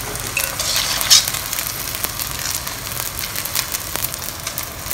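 Glass noodles and prawns sizzling and crackling in a hot clay pot as they steam in a little marinade, with a few louder crackles about a second in.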